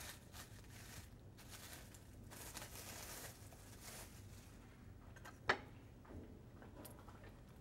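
Clear plastic wrap crinkling and rustling as it is peeled off a bread roll by hand, then one sharp knock about five and a half seconds in.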